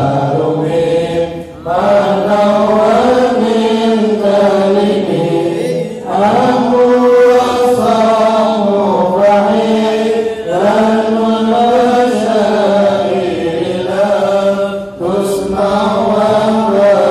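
Arabic Islamic devotional chanting: voices intone long melodic phrases, with short breaks between lines about every four to five seconds.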